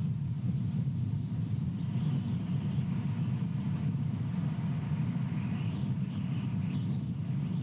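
Steady low rumble of wind buffeting an outdoor nest-camera microphone, with a fainter higher hiss that swells a little twice.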